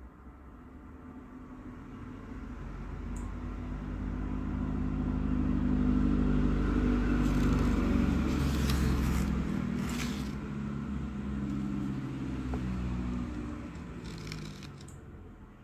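A motor vehicle's engine passing by, rising to its loudest about halfway through and then fading away, with a few faint clicks along the way.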